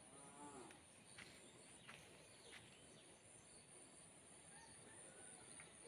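Near silence: faint outdoor ambience with a steady high insect drone and a few faint bird chirps.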